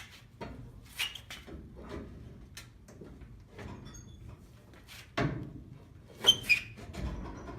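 Scattered knocks and metal clinks from parts being worked free of a 1970 Ford F250's twin I-beam front suspension. There is a heavier knock about five seconds in, then two sharp, ringing clinks close together.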